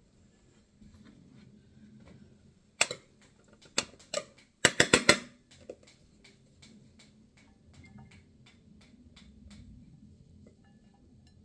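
Clinks and knocks of cutlery and dishes being handled, with a quick loud cluster of clatters about five seconds in, then faint regular ticking.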